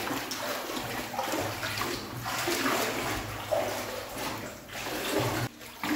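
Water sloshing and splashing as someone wades through knee-deep floodwater in a concrete septic tank, swelling with each stride.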